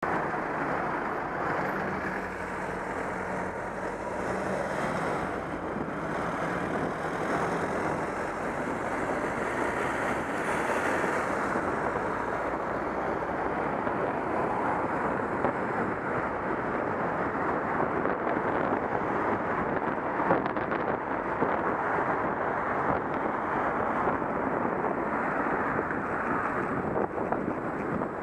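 Steady wind and road noise from a moving car, rushing over an outside-mounted camera microphone. A low steady hum shows in the first several seconds, then gives way to the even rush of driving.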